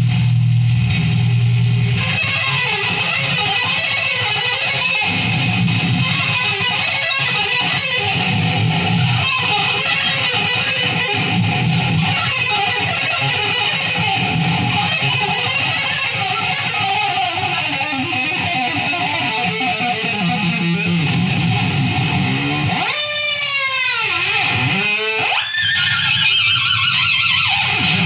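Electric guitar playing sustained, layered notes; near the end the pitch swoops down and back twice, like a whammy-bar dive.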